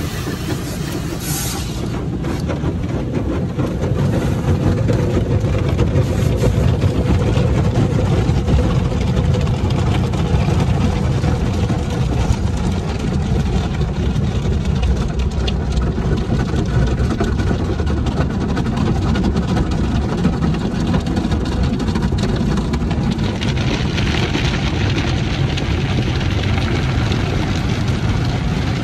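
Automatic tunnel car wash heard from inside the car: a steady, heavy rumble of water and machinery on the car's body. A hiss grows louder about five seconds before the end, as spinning cloth brushes sweep across the windshield.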